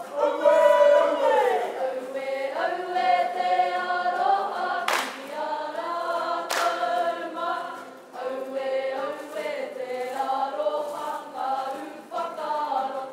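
Kapa haka group of male and female voices singing a Māori song together, the pitch sliding down in a glide about a second in. Two sharp hits cut through the singing about five and six and a half seconds in.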